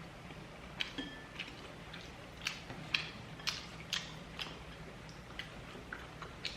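Crunching of crispy fried chicken (kkanpunggi) being chewed close to the microphone: a string of sharp crunches, about two a second.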